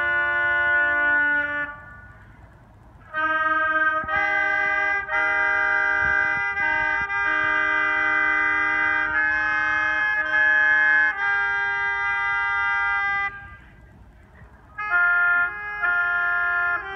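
Three oboes playing a piece together in held notes that move in harmony. The playing stops for about a second and a half twice, about two seconds in and again about thirteen seconds in.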